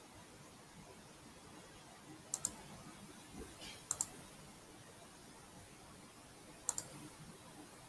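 Three pairs of short, sharp clicks, a second or two apart, over a faint steady room hiss.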